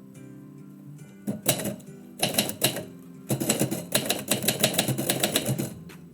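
Typewriter keys struck in quick runs of clicks: two short bursts of typing, then a longer, steady run from about three seconds in. Instrumental background music plays underneath.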